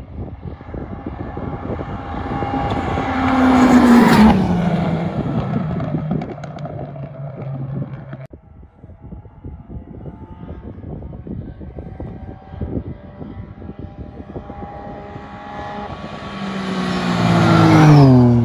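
Two rally cars pass flat out on tarmac, one about four seconds in and a Ford Fiesta rally car near the end. Each engine note climbs as the car approaches and drops in pitch as it goes by. The first car's sound cuts off suddenly about eight seconds in.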